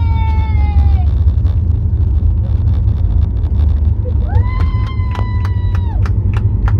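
Steady low rumble of a Boeing 737 airliner just after landing. A high pitched tone is held for about a second and a half twice, near the start and about four seconds in, and a few sharp clicks come near the end.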